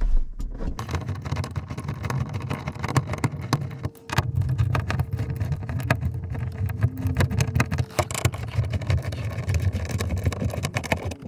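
Close rustling, rubbing and small metal clicks as a folding Torx key set is opened and worked at the roof bolts in a car's headliner, with a short break about four seconds in.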